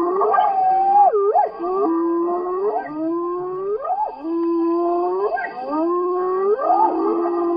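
Hyenas calling: a run of drawn-out whoops, each a held note that sweeps upward at its end, repeating about once a second, with more than one animal overlapping.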